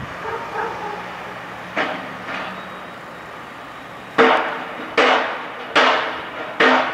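Loud metallic strikes, a hammer on metal, begin about four seconds in. They come evenly a little under a second apart, each ringing briefly before it fades.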